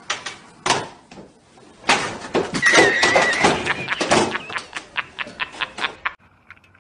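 An animal clattering at a door: a rapid run of knocks and scrapes against the door and tile floor, busiest in the middle, with a brief high squeak about three seconds in.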